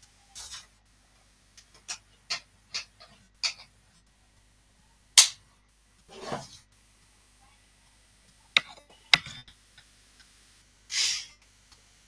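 Scattered sharp clicks and taps, about ten in all, the loudest about five seconds in, with three short hissing bursts in between.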